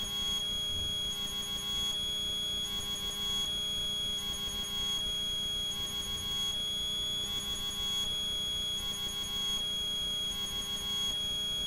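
A steady high-pitched electronic whine, one unchanging tone with no rhythm.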